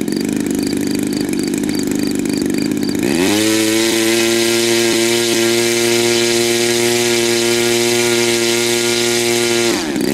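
RCGF 26cc single-cylinder two-stroke gas engine on a model biplane, idling and then opened up about three seconds in, its pitch rising quickly to a steady high-rpm run with the propeller turning. Near the end the throttle is briefly cut back and opened up again.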